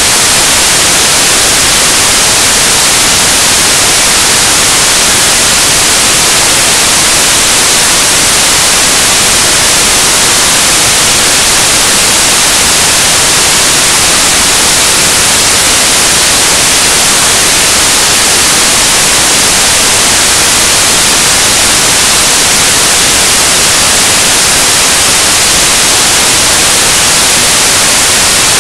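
Loud, steady static hiss that does not change, with no court sounds standing out through it.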